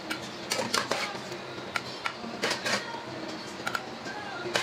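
A perforated metal skimmer clinking and scraping against a glass baking dish as a grain filling is spread over potato slices: irregular sharp clicks, several in quick clusters.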